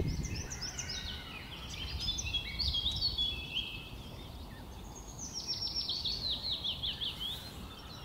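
Songbirds singing, a jumble of quick chirps and trills, then after a short lull a fast run of down-slurred notes. A low rumble of wind on the microphone runs underneath.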